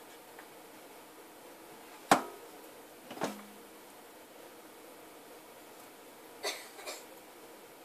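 A few sharp knocks and taps on a hard surface while a loaf of cold-process soap is cut into bars, the loudest about two seconds in and a quick pair near the end.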